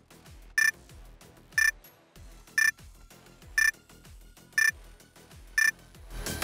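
Workout countdown timer beeping once a second, six short high beeps in all, counting down the last seconds of an exercise over faint background music.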